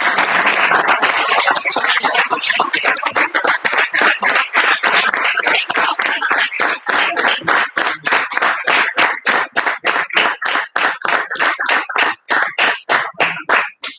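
A small group applauding: a dense patter at first that thins over the second half to a few people's separate, evenly spaced claps, stopping near the end.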